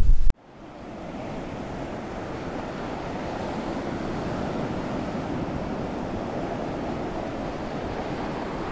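Steady wash of ocean surf that fades in and tapers off near the end. Just before it, a brief loud rumble of wind buffeting the microphone cuts off abruptly a fraction of a second in.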